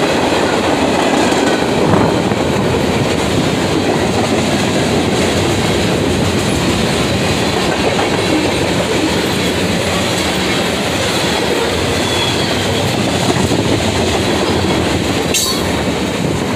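Freight train cars (tank cars, covered hoppers and a gondola) rolling past close by, with a steady loud noise of steel wheels on rail. A single sharp click comes near the end.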